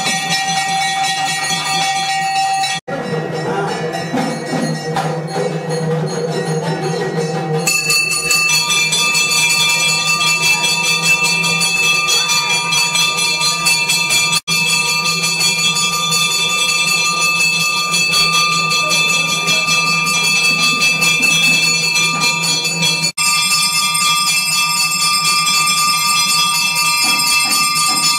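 Temple bells ringing continuously during a lamp offering before the deity, a loud, sustained metallic ringing. It breaks off and changes abruptly a few times.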